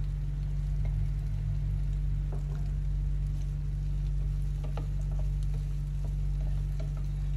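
Sliced pig ears stir-frying in a pan of oil: light sizzling with scattered clicks of a utensil stirring and scraping, over a steady low hum.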